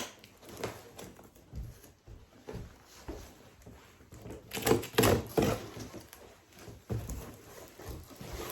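Cardboard box and packing being handled and opened: irregular knocks, bumps and rustles, with a louder cluster about five seconds in.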